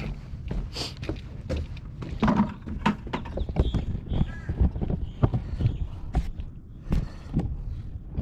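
Irregular knocks like footsteps, with wind rumbling on the microphone. A few short bird calls are heard in between.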